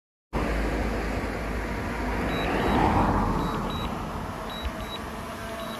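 DJI Mavic Air 2 drone's propellers buzzing as it flies close by, growing louder to a peak about three seconds in and then easing off, over a heavy low rumble of wind on the microphone.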